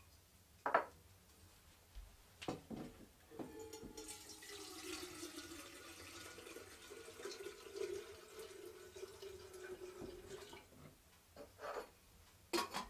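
Water pouring steadily into a pot for about seven seconds, with a held ringing tone under the splash. Sharp knocks and clunks of the pot and container being handled come before and after the pour.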